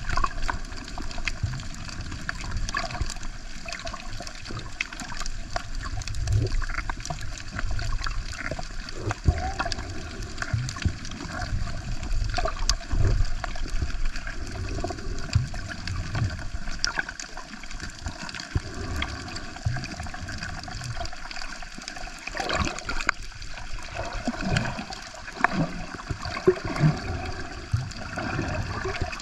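Water sloshing and gurgling close to the microphone, with scattered sharp clicks and low rumbling swells.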